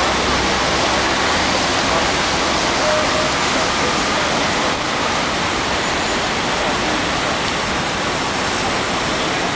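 Steady, even roar of busy city street traffic, with no single vehicle standing out.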